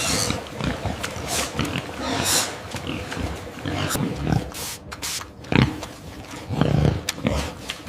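Pig grunting irregularly, mixed with short clicks and knocks, with louder grunts about five and a half and seven seconds in.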